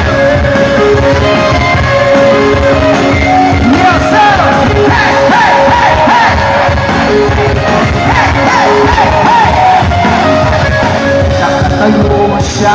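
Live pop-rock band playing loudly through a concert PA, heard from right in front of huge speakers so the sound comes through badly, with voices singing and yelling over the music.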